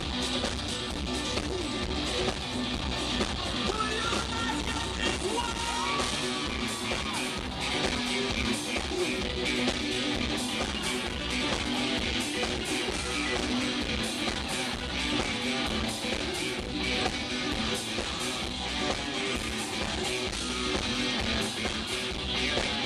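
Live rock band playing, with electric guitars strumming over drums, bass and keyboards. There are a few sliding guitar or keyboard notes about five seconds in.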